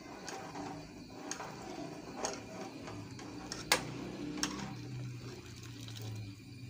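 A spoon stirring chicken soup in an aluminium pot as cornflour slurry goes in to thicken it, knocking and scraping against the pot in scattered clicks, with one sharper knock about halfway. A low steady hum comes in underneath about three seconds in.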